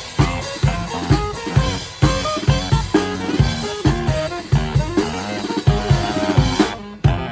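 Brass street band playing: horn melody over a drum beat of bass drum and snare. The music breaks off suddenly near the end.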